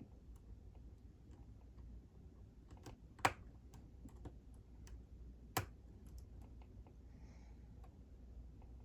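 Faint, irregular metal clicks and taps of a hook pick working the pin stacks of a Sargent Signature lock cylinder under a tension wrench, with two sharper clicks about three and five and a half seconds in.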